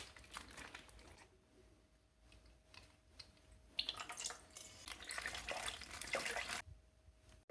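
Faint water sounds: a few small drips and clicks at first, then, about four seconds in, water splashing and trickling for a couple of seconds before it stops.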